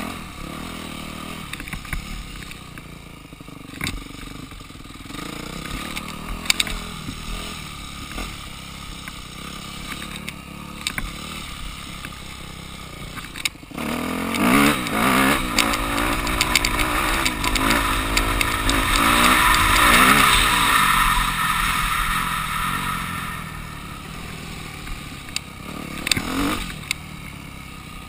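Yamaha dirt bike engine heard from the rider's seat, running at low throttle over rough ground. About halfway it opens up sharply, its pitch climbing and dropping as it accelerates through the gears. It eases back off a few seconds later, with a short blip of throttle near the end.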